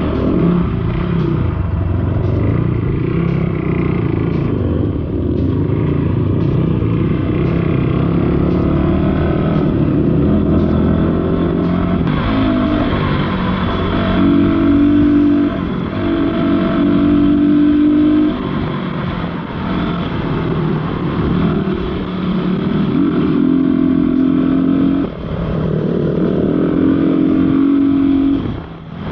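Dirt bike engine running through an off-road ride, the engine note held for a second or two at a time and then shifting up or down as the revs change, with a brief dip in level about 25 seconds in and again near the end.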